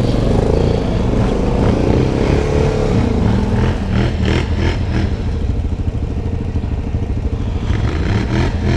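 Yamaha Grizzly 700 ATV's single-cylinder engine running under way on a dirt track, its pitch rising and falling with the throttle in the first few seconds, then settling lower and steadier.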